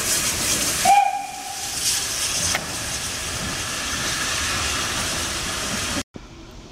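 Steam locomotive hissing steam, with one short whistle blast about a second in. The sound breaks off abruptly near the end.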